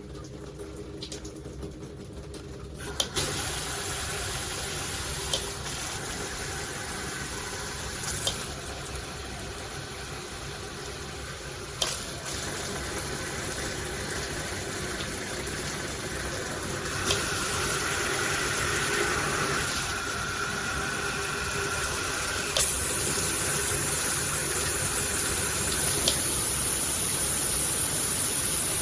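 Water spraying from a handheld 8-mode shower head, starting about three seconds in. Several sharp clicks follow as the spray setting is switched, and the rush of water changes character and grows louder after some of the clicks.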